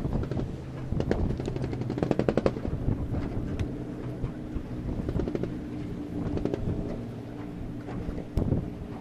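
Choppy water slapping against a small boat's hull in quick rattling bursts, over a steady low hum.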